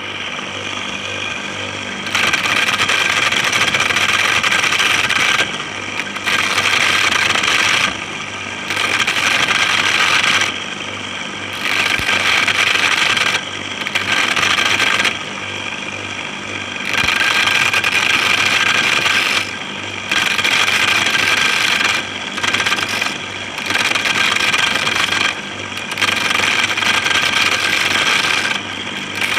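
Salvaged electric water-pump motor driving a homemade corn sheller, running with a steady whine. About ten times, for two or three seconds at a stretch, it turns louder and harsher as a corn cob is pressed against the spinning head and the kernels are stripped off.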